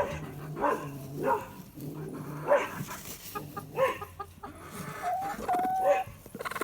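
Broody hen in a nesting box making screeching, growling protest calls: low drawn-out growls, then a run of short cries and a held higher note about five seconds in. She is upset at her eggs being taken.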